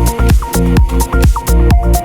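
Electronic dance music with a steady four-on-the-floor kick drum and synth lines.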